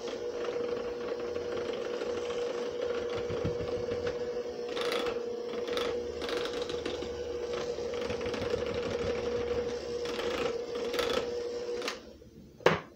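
Electric hand mixer running steadily, its beaters whipping cream cheese frosting with powdered sugar in a glass bowl, with a few louder scrapes against the bowl along the way. The motor stops near the end, followed by one sharp knock.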